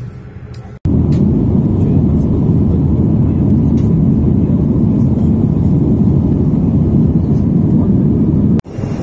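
Steady, loud roar of jet airliner cabin noise in flight, strongest in the low range. It cuts in suddenly about a second in and cuts off just before the end.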